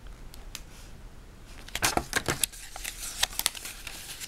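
Paper pages of a Lego instruction booklet being turned and handled: a few light clicks, then a quick run of crisp paper rustles and flaps starting about two seconds in.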